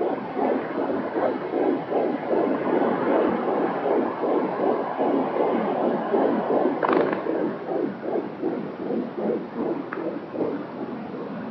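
Fetal heartbeat picked up by a Doppler ultrasound device: a fast run of evenly repeating pulses over a steady hiss, with a brief click about seven seconds in.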